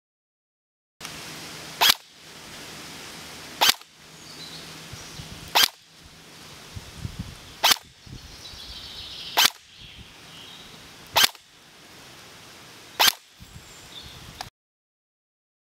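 ASG MXR18 electric airsoft rifle firing single shots through a chronograph, seven sharp cracks about two seconds apart.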